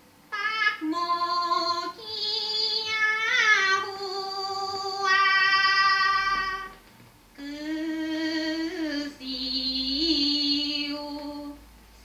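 A woman sings a Teochew opera aria in long held notes with small ornamental slides. She sings two phrases, with a short pause a little past halfway.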